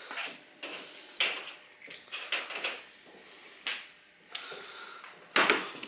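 A few light knocks and rustles, spaced about a second apart, with a louder one near the end: handling noise around a workbench.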